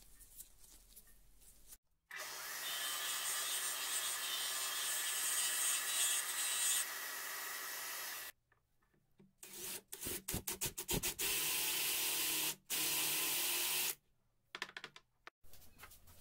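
Bench disc sander running with the end of a wooden dowel pressed against it, a steady sanding noise that stops abruptly. It is followed by several short bursts of the same kind of machine noise, broken by a few sharp knocks.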